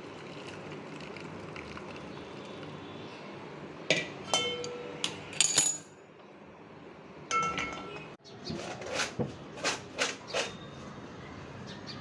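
Kitchenware clinking: a few ringing clinks, a pause, then a quick run of about six clinks near the end, over a steady background hiss.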